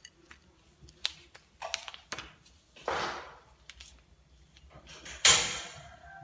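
Kitchen handling noises: scattered clicks and taps, with two short hissing sounds about three and five seconds in. The second is the loudest and fades over about a second.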